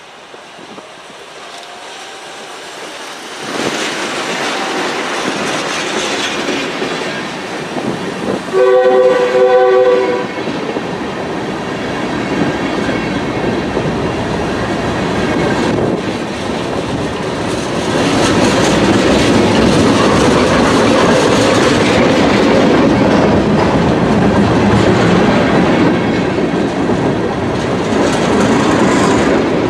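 A GE B40-8 diesel locomotive sounding its air horn in one short chord of about a second and a half as it comes up, then the train rolling past, its wheels clicking over the rail joints and growing louder near the middle.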